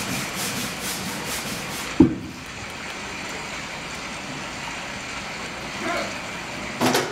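Rhythmic rubbing, about three strokes a second, that ends with a sharp thump about two seconds in. A steady hiss follows, and there is a short loud knock near the end.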